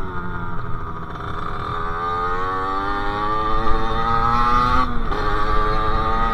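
Sherco SM-R 50's 50cc two-stroke engine through a KRM exhaust, easing off briefly, then pulling steadily up through the revs. About five seconds in the pitch drops for a moment as it shifts up, then it climbs again.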